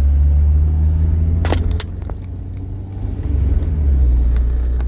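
Low, steady rumble of a car driving, heard from inside the cabin: road and engine noise. It eases for about a second a couple of seconds in, and there are two sharp clicks about a second and a half in.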